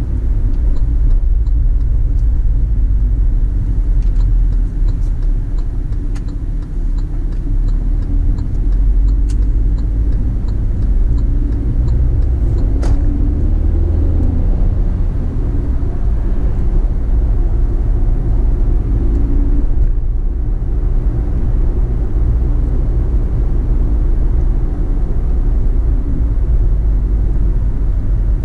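Car driving: a steady low rumble of engine and road noise, with a single sharp click a little under halfway through.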